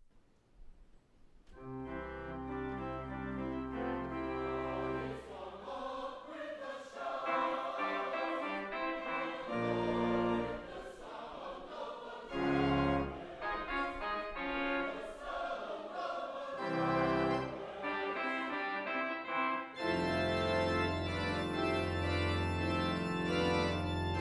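Church organ playing slow, sustained chords, starting about a second and a half in and growing fuller about 20 seconds in.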